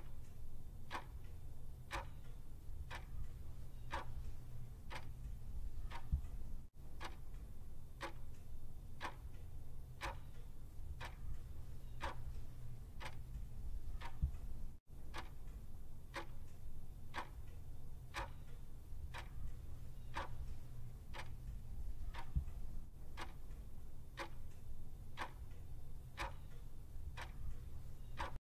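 Clock-ticking sound effect marking a half-minute countdown: an even, regular tick-tock over a faint low hum.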